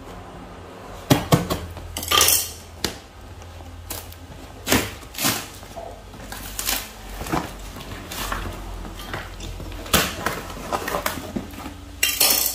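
A cardboard box sealed with packing tape being cut and torn open by hand: an irregular string of scraping, crinkling and ripping sounds, with longer tears about two seconds in and near the end.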